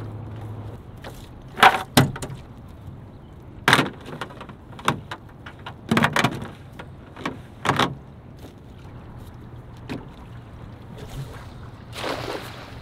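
A cast net being loaded and thrown from a small skiff: several sharp knocks and thumps against the boat as it is handled, then a short splash near the end as the net hits the water.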